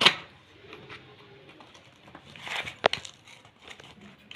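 Packaging being handled during an unboxing: crinkly rustling in short bursts, with one sharp click a little under three seconds in.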